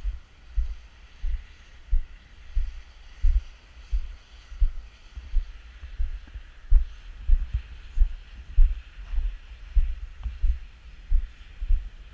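Walking footsteps thudding through a body-worn camera: a low, regular thump about one and a half times a second, over a steady faint hiss.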